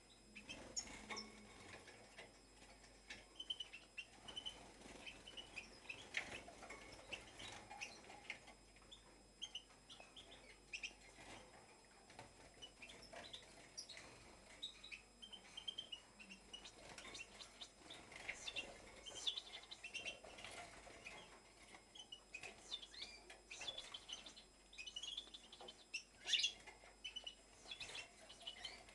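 Caged finches chirping and twittering in short, scattered calls throughout, now and then louder, the loudest near the end.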